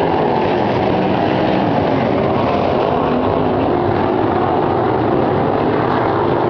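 A pack of sprint car engines running together on a dirt oval: a steady, dense drone of many overlapping engine notes that waver slightly in pitch.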